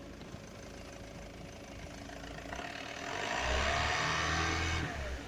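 2004 Opel Zafira engine idling, then revved about halfway through, held up for about two seconds, and dropping back to idle near the end. The blip is a check for an irregular knock, which the owner says is not heard on this rev.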